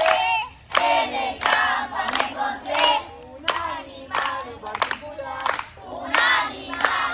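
A group of voices singing or chanting a campfire action song together, punctuated by sharp hand claps.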